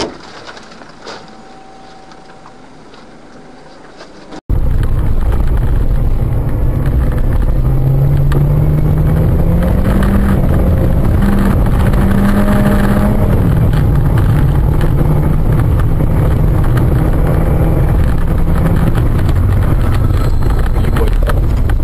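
Car engine and road noise from a moving vehicle, heard from inside. A fairly quiet stretch gives way abruptly, about four and a half seconds in, to loud, steady low noise, with the engine's pitch rising and then falling around the middle.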